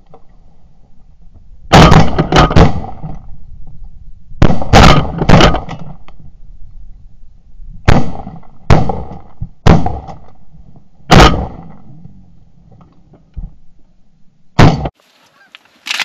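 Shotgun blasts from several hunters firing at passing Canada geese: about a dozen shots in quick bursts of two or three, with geese honking between them.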